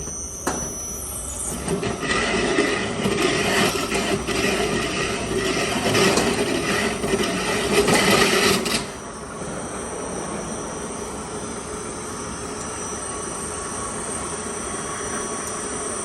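Innovatech 18-inch concrete floor grinder, its 3 HP WEG electric motor driving the grinding stones across a concrete floor with a loud, rough scraping drone. About nine seconds in the grinding noise drops off sharply, leaving the machine running more quietly and steadily.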